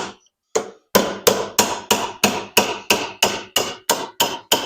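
Hammer striking a wood chisel set against a stuck motor cradle bushing, a steady run of sharp metallic blows about three a second, each with a brief ring. The bushing does not budge under the blows.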